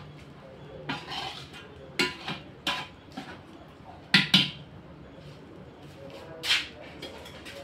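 Metal ladle knocking and scraping against a large metal cooking pot while food is stirred, a few separate clanks, the loudest two close together about four seconds in.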